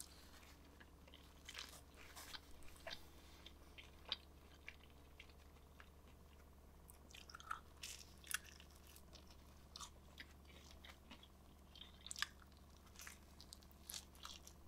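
Faint biting and chewing of a slice of thin-crust cheese pizza, heard as scattered small clicks and crackles over a steady low hum.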